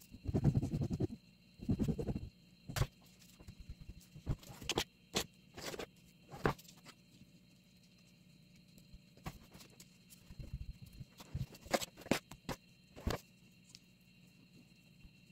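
Kitchen knife spreading soft cream over a sponge cake layer: wet squishing and scraping of the blade through the cream, loudest in two stretches in the first two seconds, then scattered light clicks and taps of the knife.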